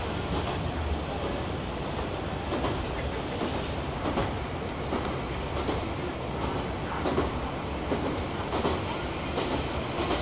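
Passenger train running steadily, heard from inside the car: a constant rumble of wheels and running gear, with an occasional sharp click of the wheels over the track several times.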